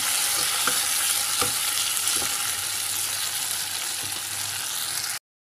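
Chopped tomatoes, onion and green chillies sizzling steadily in hot oil in a nonstick kadai, with a few light spatula taps as they are stirred in the first couple of seconds. The sound cuts off abruptly near the end.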